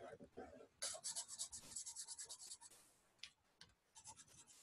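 Felt-tip marker scratching on sketchbook paper, faint. A quick run of back-and-forth strokes about a second in fills in a dark triangle, followed by a few lighter strokes.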